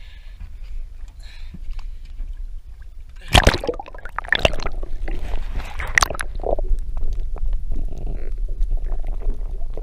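Action camera mounted on a boat flopping down into the sea: a loud splash about three seconds in, then more splashes and muffled gurgling water as it drags under the surface, over a steady low rumble.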